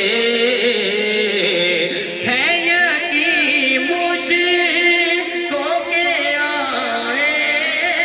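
Male voices singing an Urdu naat in long, slow melismatic phrases with wavering pitch. A new phrase begins about two seconds in.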